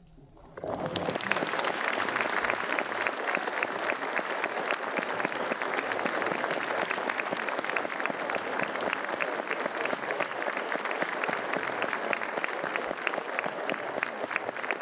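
Large audience applauding: dense clapping breaks out suddenly about half a second in and then goes on steadily.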